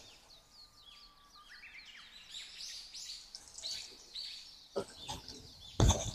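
Small birds chirping over and over in the background, short quick falling notes, with a single thump near the end.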